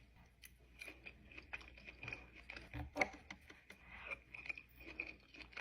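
A person chewing steak: faint, irregular wet mouth clicks and smacks, a little louder about three seconds in.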